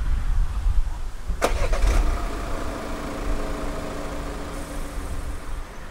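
Wind buffeting the microphone, then, about a second and a half in, a sharp click as the Citroën DS5's 2.0 BlueHDi four-cylinder diesel is started. The engine catches and settles into a steady idle that fades toward the end.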